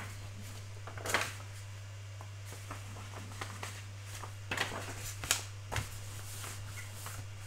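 Paper pages of a large instruction booklet being turned, a few short rustles, over a steady low hum.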